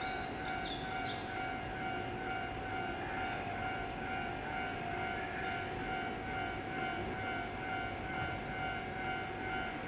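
Shinano Railway SR1 series electric train's electrical equipment giving a steady hum of several held, unchanging tones over a low rumble, with no rise or fall in pitch.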